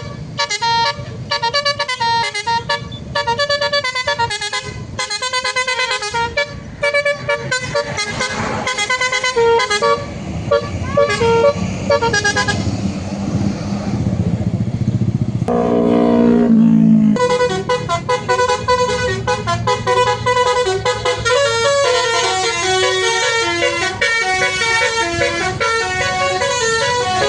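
Basuri 'telolet' bus horn, a multi-tone electric horn, playing quick melodic tunes note by note in short phrases. Partway through comes a lower run of falling notes, then the tune resumes and runs on busier.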